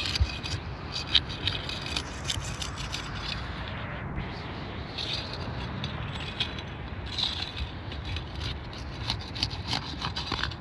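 Irregular scraping, clicks and rattles from handling and working on asphalt roof shingles, with a few sharper knocks in the first second or so.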